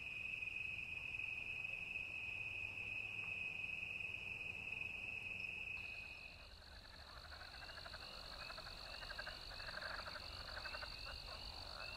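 Night chorus of insects and frogs: a steady high-pitched trill, which gives way about six seconds in to a higher trill with repeated rapid pulsed calls.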